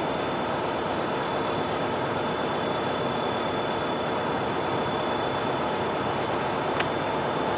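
Stationary Siemens Charger diesel locomotive idling: a steady, unchanging engine drone with a thin high whine running through it, and a single brief click near the end.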